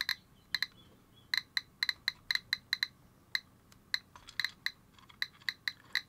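GQ GMC-320 Plus Geiger counter clicking at irregular intervals, about three clicks a second, as its Geiger-Müller tube detects radiation from the americium-241 source in a smoke detector. The count rate is rising.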